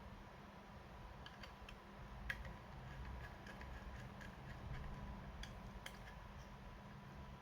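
Scattered light clicks and ticks as small laptop parts are handled, the sharpest about two seconds in, over a faint low hum.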